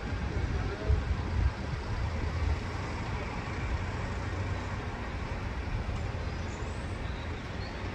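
Jet aircraft engine noise: a steady rushing sound over a low, uneven rumble, with a few dull thumps about a second in.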